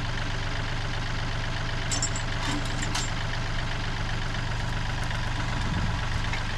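Engine idling steadily, with a few short metallic clanks about two to three seconds in.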